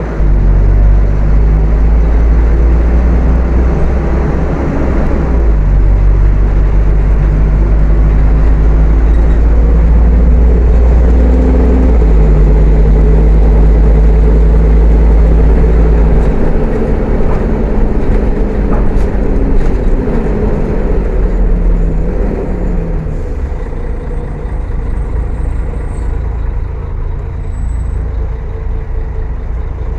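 Diesel engine of a Mercedes-Benz O500-UA bus with a ZF automatic gearbox, pulling hard under load with a change of pitch about five seconds in and again about twelve seconds in. Past the middle it lets off: the engine tones fall in pitch and it runs quieter in the last several seconds.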